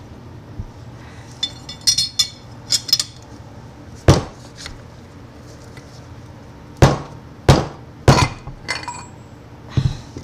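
Steel lathe parts clinking and knocking as the bull gear is worked off a South Bend 13-inch lathe spindle: a few light ringing clinks about two seconds in, then five sharper knocks spread through the rest.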